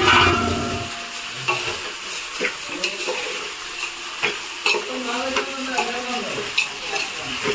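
Rice tipped into a pot of hot oil and biryani masala with a sudden rustling rush at the start. It is then stirred with a metal spoon that scrapes and clinks against the pot over a steady sizzle.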